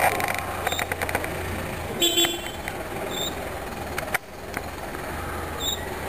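Outdoor street ambience with vehicle traffic and a low steady hum, with a few short high chirps.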